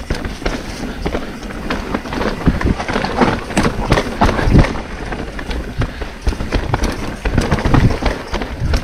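Mountain bike riding fast over rough forest singletrack: tyres rumbling on dirt, with rapid, irregular clattering knocks and rattles as the bike hits roots and rocks. The hardest hits come about halfway through and again near the end.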